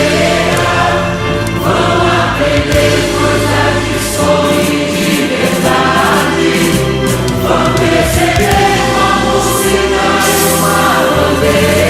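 Background music: a choir singing a song over steady low instrumental bass notes.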